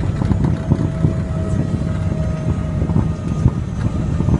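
Cabin noise of a Cessna Mustang rolling along the runway after landing: a steady low rumble from the tyres and airframe with small knocks, under a faint steady whine from its turbofan engines.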